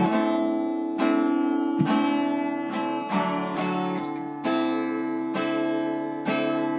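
Acoustic guitar strummed in slow chords, about one a second, each chord ringing out and fading before the next: an instrumental gap in the song with no singing.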